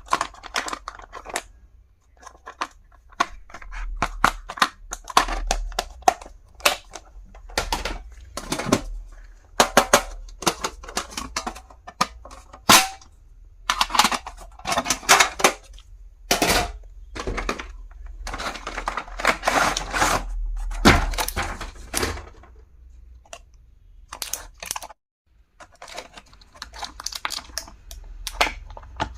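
Stationery items and their packaging being handled during an unboxing: a run of sharp clicks, taps and knocks, with stretches of rustling. There is a short pause about 25 seconds in.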